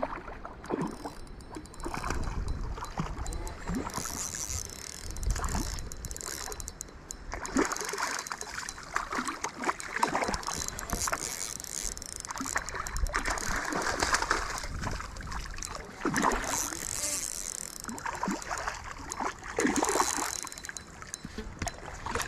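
Water splashing in irregular bursts as a hooked trout thrashes and fights at the surface. Wind rumbles on the microphone during the first few seconds.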